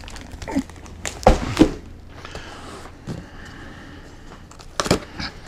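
A large cardboard shipping box being handled, with two thumps against it about a second in. Then a few seconds of scraping and rustling as its packing tape is picked at by hand, and a sharp knock near the end.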